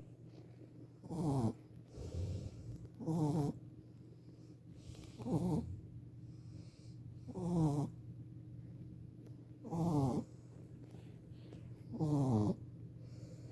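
A Shih Tzu puppy snoring in its sleep: six short pitched snores, one about every two seconds.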